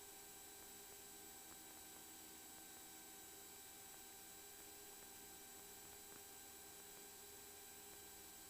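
Near silence: the faint steady hiss and electrical hum of an aircraft intercom and radio recording feed, with a thin high whine and no engine or voices standing out.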